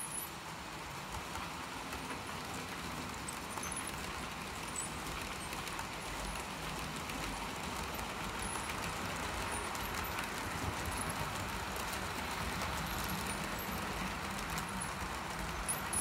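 Several HO-scale model trains running at once over pointwork: a steady metallic rolling rattle of small wheels on rails, with light clicking over the turnouts, growing slightly louder as more trains move.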